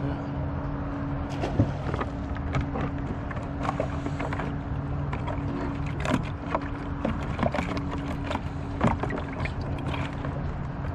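An engine idling nearby with a steady, low, even hum, alongside scattered light clicks and knocks.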